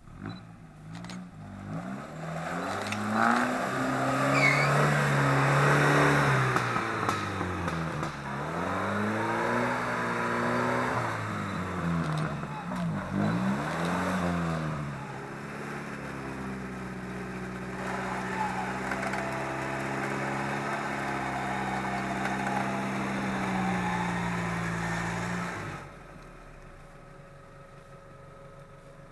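Off-road 4x4's engine revving hard, its pitch swinging up and down several times, then held at steady high revs before stopping abruptly near the end.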